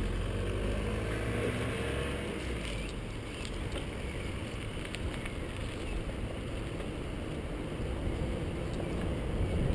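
Wind rushing over a helmet-mounted action camera and mountain-bike tyres rolling on asphalt, a steady low rumble with a few light clicks near the middle.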